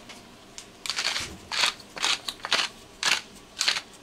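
Pepper grinder being twisted over raw chicken, a short crunching rasp with each turn, about two a second, starting about a second in.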